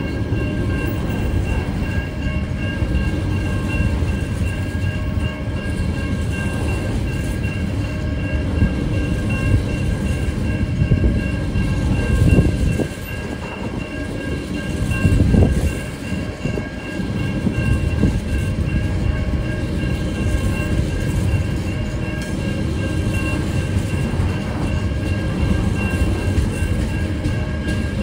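Freight train's container wagons rolling past a level crossing: a steady heavy rumble and clatter of wheels on rail, with louder surges about halfway through. Two steady high ringing tones run underneath throughout, typical of the crossing's warning bell.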